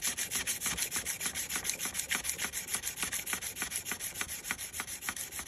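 400-grit sandpaper on a small block rubbed back and forth on the flat of a stainless steel cleaver blade, in quick, even scraping strokes about five a second. It is laying down a scratch pattern on the steel to match against the scratches from the sharpening stone.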